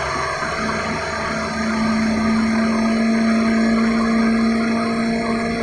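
Countertop blender motor running at speed, churning green mayonnaise while a thin stream of oil goes in; a steady hum sets in about half a second in as the mixture emulsifies and thickens.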